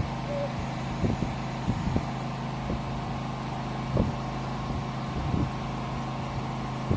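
A steady low mechanical hum, with a few brief soft knocks and bumps scattered through it.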